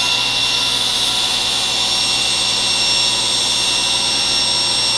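Table saw running steadily with a high whine as its blade rips a board fed along the fence.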